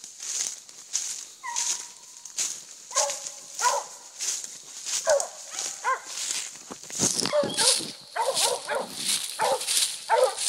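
Hound dogs barking and baying in a string of short pitched calls, with one drawn-out bay about one and a half seconds in. Footsteps crunch through dry leaf litter about twice a second underneath.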